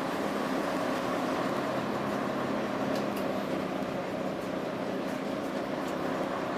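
The underfloor diesel engine of an AEC Regal IV RF-class bus, running steadily as the bus drives along, heard from inside the saloon. A few faint clicks and rattles come through it.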